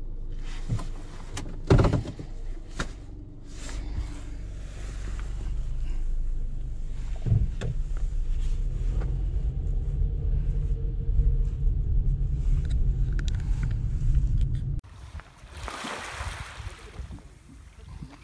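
Car driving, heard from inside the cabin: a steady low rumble of engine and road noise, with a few sharp knocks, the loudest about two seconds in. The rumble cuts off suddenly near the end, and a short hiss follows.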